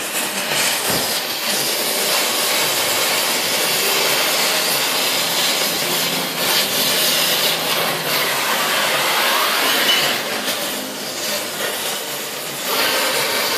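Gas cutting torch flame hissing and rushing steadily, its level wavering and dipping briefly a few times.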